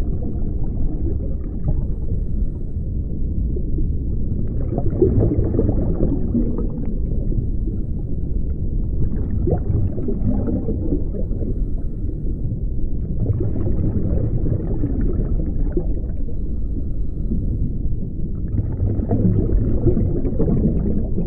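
Ocean surf heard muffled, with the top end cut away: a continuous low rumble that swells roughly every four to five seconds as waves break.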